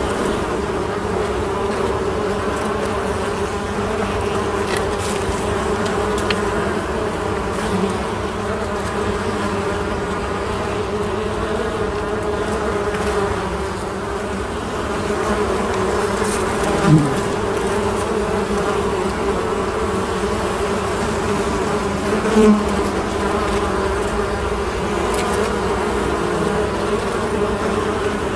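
Honeybees at an open hive buzzing in a steady, many-voiced hum. Two brief louder buzzes stand out past the middle.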